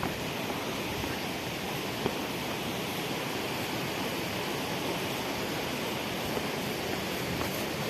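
Steady rushing of water from a mountain waterfall and stream.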